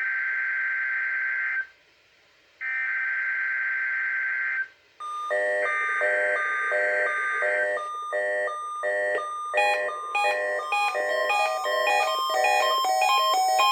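NOAA Weather Radio SAME header data bursts for a required weekly test: a buzzy, raspy data tone, each burst about two seconds long with a second's gap between them, sent three times. From about five seconds in, a weather radio receiver's electronic alert beeping joins the third burst. The beeps repeat evenly at first, then from about ten seconds in they step up and down in pitch in a faster pattern.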